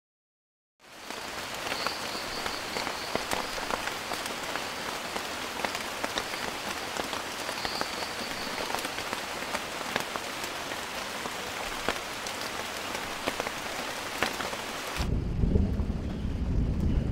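Steady heavy rain, a dense hiss full of small drop ticks, rising in about a second in. Near the end it cuts suddenly to a loud deep rumbling.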